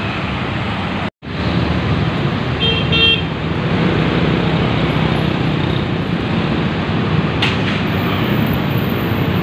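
Heavy urban road traffic, mostly motorcycles and cars running past. A vehicle horn gives two short toots about three seconds in. The sound cuts out for an instant about a second in.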